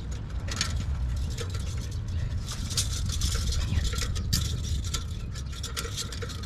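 Irregular sharp metallic clicks and scrapes from handling the exhaust pipe and its pipe connector during fitting, over a steady low rumble.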